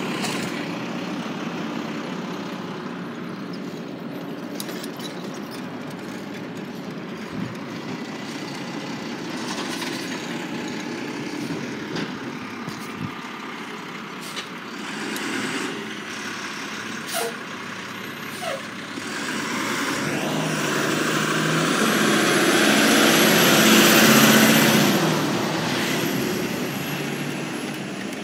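Garbage truck running, a steady engine sound that swells loud about three quarters of the way through, with a high whine at its peak, then eases off.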